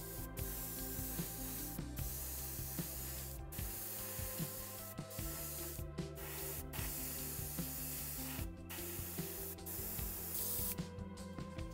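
Airbrush spraying paint: a steady hiss broken by several short pauses, stopping shortly before the end. Background music plays underneath.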